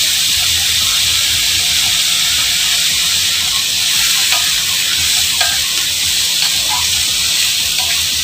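Diced vegetables sizzling in oil in a wok as a slotted spatula stirs them, with scattered light scrapes and taps of the spatula on the pan from about four seconds in.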